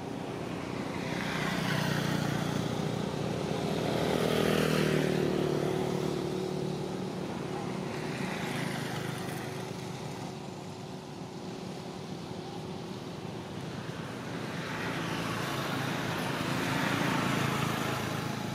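Road traffic passing: several vehicles go by one after another, each swelling and fading over a few seconds. The loudest, about four to five seconds in, has an engine note that drops in pitch as it passes.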